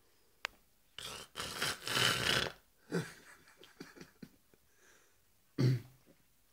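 A man snoring: a long rasping breath about a second in, then a short low snort near the middle and a louder one near the end.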